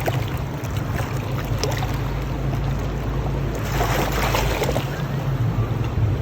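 River water rushing and lapping, with a steady low rumble underneath and wind buffeting the microphone; a brief rush of splashing a little after halfway.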